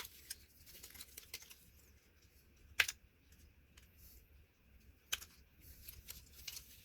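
Small plastic posts inside a remote control's case being cut down: light scattered clicks and scrapes, with three sharper snaps spaced a couple of seconds apart.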